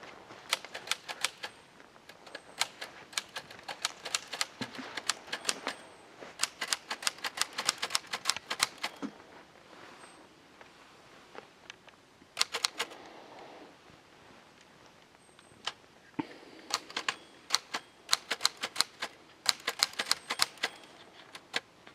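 Manual typewriter being typed on: runs of quick, sharp keystrokes in bursts, broken by pauses, the longest about ten seconds in.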